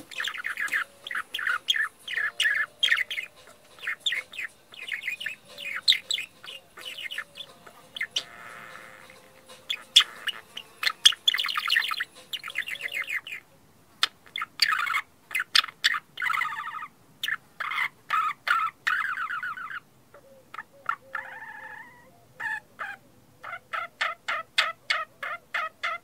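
Budgerigars chirping and warbling in quick, dense runs of short chirps, with a couple of brief pauses. Near the end the calls settle into an even series of about three chirps a second.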